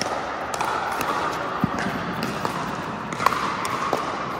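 Pickleball rally: a hard plastic ball popping off paddles and the court in quick volleys. There are several sharp pops, the loudest about three seconds in.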